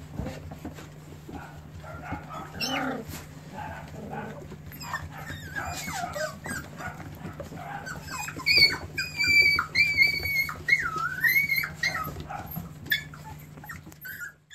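Cockapoo puppies playing and yelping: a run of high-pitched yips and whines that gets busier and louder in the second half, with scrabbling knocks of paws on the floor.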